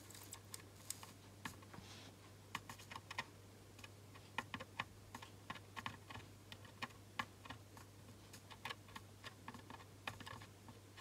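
Faint, irregular clicks and ticks, coming in quick little clusters, as a soldering iron tip is drag-soldered along the fine pins of a surface-mount processor chip. A steady low hum runs underneath.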